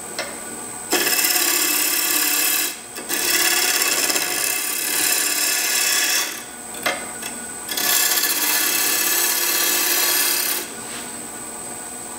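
Gouge making draw cuts into a cross-grain wooden handwheel blank spinning on a wood lathe at about 1400 RPM: three cuts, each a loud steady hiss of shavings lasting two to three seconds, with the lathe running quietly between them.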